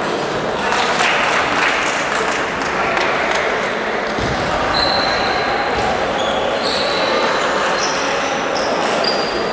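Table tennis balls clicking and pinging off bats and tables in a reverberant hall with several games in play, over a steady background murmur of voices.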